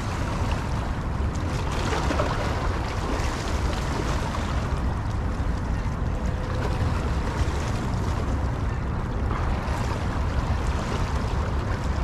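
Steady wind rumbling on the microphone over the wash of river water against the rocky shoreline, with no distinct events.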